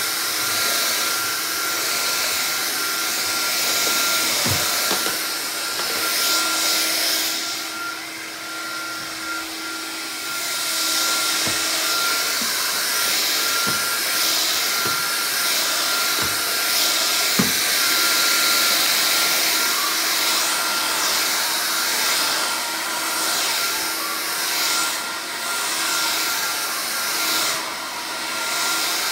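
Vax Air Cordless upright vacuum cleaner running with a steady motor whine and airflow hiss, swelling and dipping as it is pushed back and forth over the floor, with a few light knocks.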